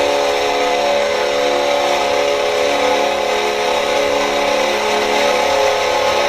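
Nashville Predators goal horn sounding one long, continuous blast: a steady chord of several tones held without a break.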